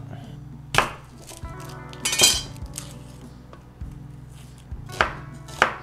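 A chef's knife knocking on a wooden cutting board a few times as an onion is cut and peeled, with background music.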